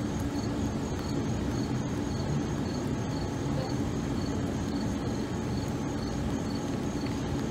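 Steady outdoor background: a low hum, with insects chirping in short high-pitched pulses about twice a second.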